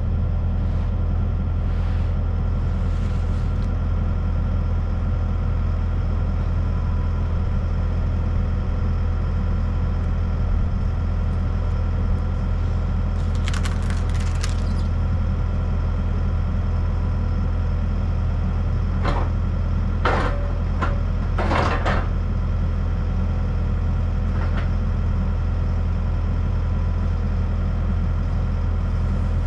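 An engine idling steadily with an even low drone. Several short wooden knocks and scrapes sound about halfway through and again a few seconds later, as freshly cut slabs are handled.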